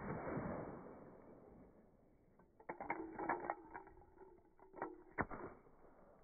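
The fading tail of a firecracker bang, then a run of sharp wooden clicks and knocks as the slats of a small wooden tower fall and clatter onto brick pavers, with the loudest knocks about three and five seconds in.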